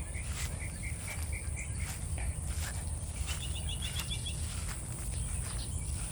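Outdoor rural ambience: a steady high-pitched insect drone over a low rumble, with a run of quick chirps that stops about two seconds in and a shorter run of higher chirps about three seconds in.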